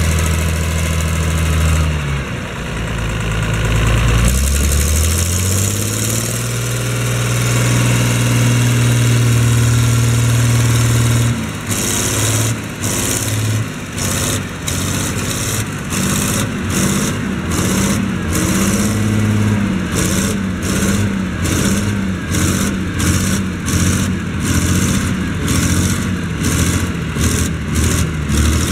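Diesel engine of a Massey Ferguson 1102 tractor (an Eicher 3105 in MF colours) running under load while pulling a manure spreader. The engine speeds up about three seconds in and then holds steady. From about twelve seconds on, the sound pulses evenly about twice a second.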